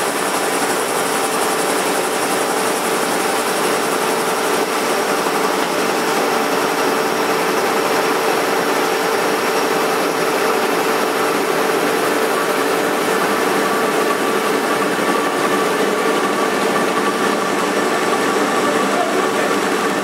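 Royal 333 carton folder-gluer running at speed, its belts and rollers carrying carton blanks through: a steady mechanical whir with a constant hum.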